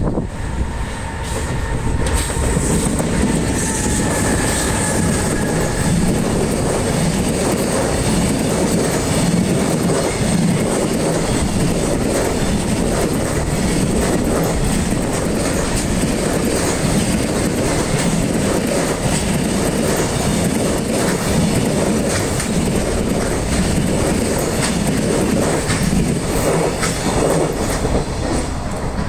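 Container freight train hauled by an EH500 electric locomotive passing close by: a steady rumble and rhythmic clatter of wagon wheels over rail joints, with a thin high whine above it, easing off near the end.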